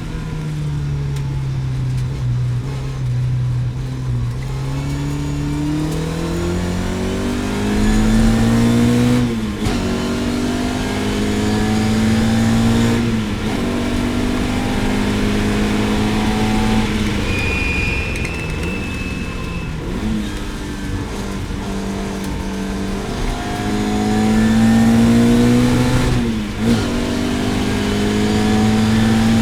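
Lotus Elan GTS race car engine pulling hard on track. The revs ease off at first, then climb again and again, broken by brief dips at the gear changes, about four times.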